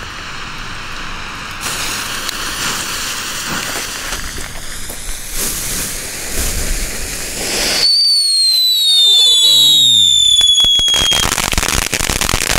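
Small youth-grade firework fountains spraying sparks with a steady hiss. About eight seconds in, a loud whistle sets in and slides slowly down in pitch for about three seconds, followed by dense crackling.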